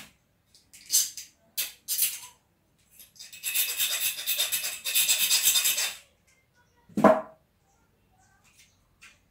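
Thin metal wire being worked with pliers, making scraping and rattling handling noise. There are a few short scrapes, then about three seconds of fast, continuous rasping, then a single knock about seven seconds in.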